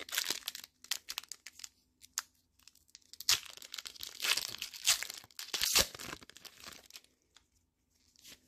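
A foil booster pack of Pokémon trading cards being torn open and crinkled by hand: short crackles at the start, then a longer, louder stretch of tearing and crinkling from about three to six seconds in.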